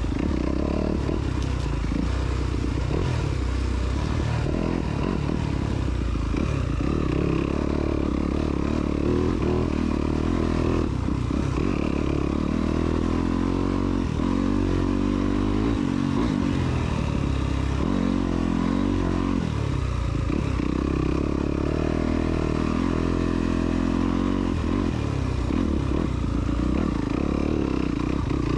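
Off-road motorcycle engine running, its revs rising and falling over and over as the throttle is worked.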